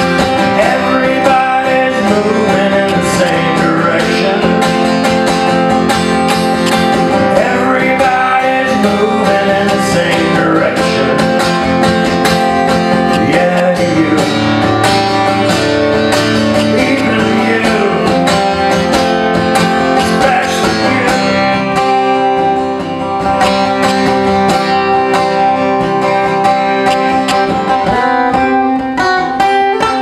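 Acoustic guitar played live, a continuous run of plucked and strummed notes over ringing chords, dipping briefly about three quarters of the way through.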